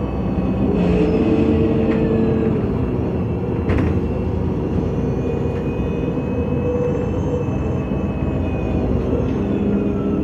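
MAN NG 273 T4 articulated city bus running on its LPG engine, a steady engine and drivetrain drone that drifts slightly in pitch, with a faint higher whine over it. A single sharp knock a little under four seconds in.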